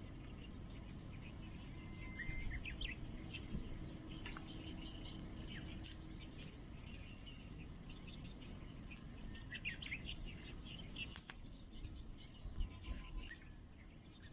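Birds chirping on and off, with a handful of sharp pops from a wood campfire crackling.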